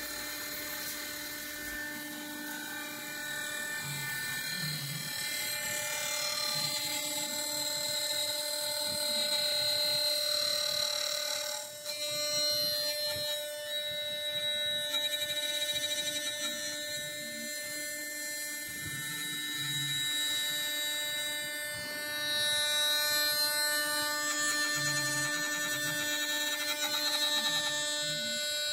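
A CNC router spindle runs with a steady whine while its bit carves a wooden cylinder turning on the rotary fourth axis. The cutting noise swells and eases as the cut goes on, with a brief drop about twelve seconds in.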